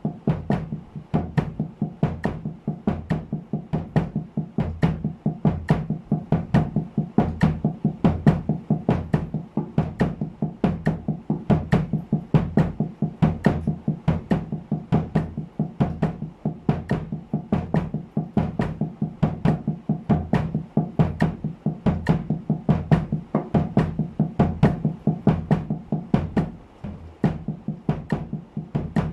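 Cloth-muffled snare drum played with wooden sticks in a steady double-stroke pattern at 70 bpm, with bass drum kicks on the last two sixteenth notes of each beat. The strokes break off briefly near the end.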